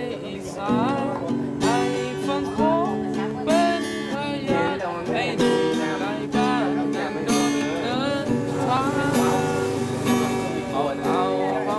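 Acoustic guitar strummed in a steady rhythm, a strong strum about once a second, with a voice singing along.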